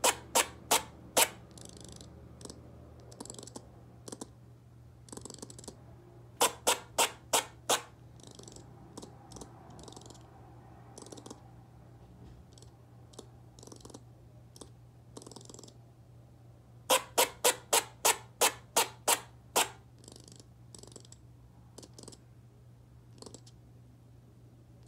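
Eastern gray squirrel barking in rapid bouts of sharp calls, about four a second: one bout at the start, another around 7 s in, and a longer run of about a dozen calls from about 17 s. Fainter short high sounds come between the bouts.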